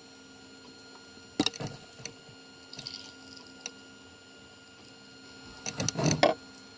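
Handling sounds of a silicone funnel with a steel mesh strainer on a resin bottle: a sharp click a little over a second in, a few small clicks, and a louder stretch of knocking and rubbing near the end, over a steady faint electrical hum.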